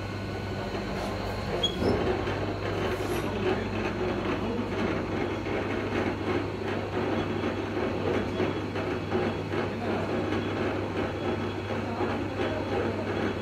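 Running machinery: a steady low hum under continuous rattling, clattering mechanical noise that grows louder about two seconds in.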